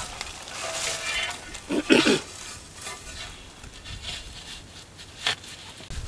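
Rustling and scraping as a plastic board is handled and laid over a hole in loose soil. A short pitched call sounds about two seconds in, the loudest moment, and a sharp knock comes near the end.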